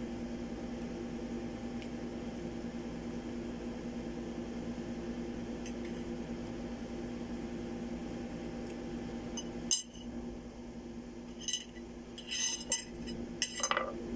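A steady low hum, then from about ten seconds in a metal fork clinking against a ceramic plate several times as it works at mango slices.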